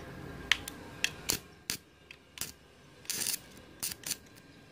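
Stick-welding electrode of a Morris 160 A inverter welder tapped and scratched on a steel motor casing to strike an arc at 20 amps. It gives a series of sharp clicks and brief crackles, with a longer sputter about three seconds in. The arc keeps failing to hold, with a current that seems too low.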